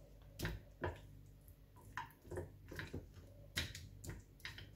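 Hand mixing lamb chops through thick gram-flour batter in a glass bowl: faint, irregular wet squelches and small taps, a few each second.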